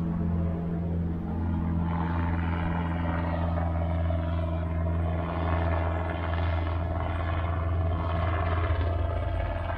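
Robinson R22 Beta helicopter in flight, approaching to land: a steady low hum from its engine and rotors, with a rushing noise that builds from about two seconds in.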